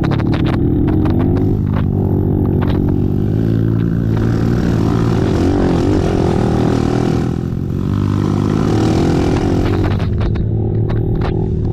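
Racing ATV engines running hard on the track, revving up and down as the quads pass, with a short drop in engine sound about seven and a half seconds in before they pick up again.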